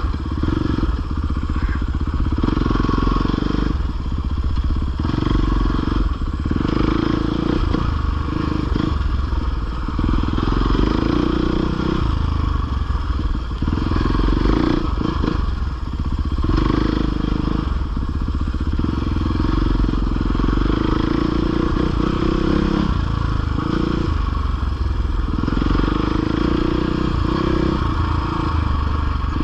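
450 four-stroke dirt bike engine ridden on a trail, revving up and down as the throttle opens and closes every second or two, with some rattling and clatter from the bike.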